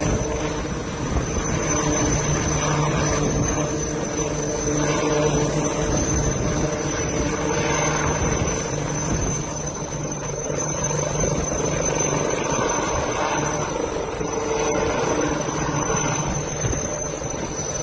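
HAL Light Utility Helicopter's single engine and rotors running as it lifts off the pad into a hover: a steady rotor noise with a thin, high, steady turbine whine over it.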